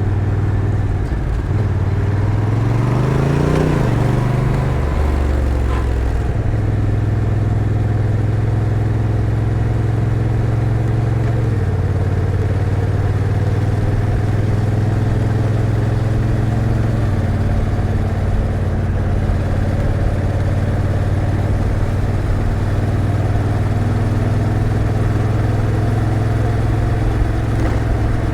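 Honda NT1100's 1,084 cc parallel-twin engine pulling under acceleration: the revs rise for about two seconds, drop sharply as the dual-clutch transmission shifts up about four seconds in, then the engine runs on at a steady pace with small changes in pitch later.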